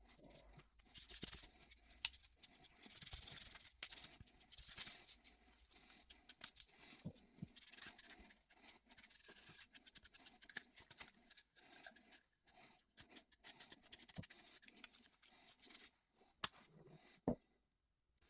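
Faint, irregular scrubbing and scraping on a winch remote's casing as it is cleaned, with scattered small clicks and taps.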